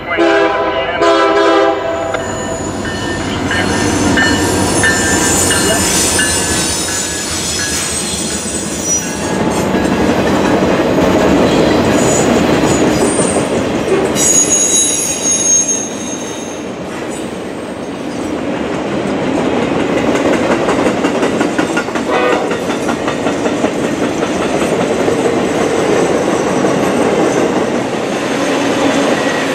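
Freight train horn sounding a chord that ends about two seconds in, then the train rolling past at speed: locomotive and a long string of Triple Crown RoadRailer trailers on the rails, with a steady rumble of wheels and spells of high wheel squeal.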